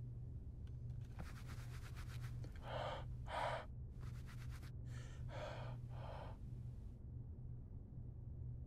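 Several short breathy puffs and gasps from a person, in quick succession, over a steady low hum.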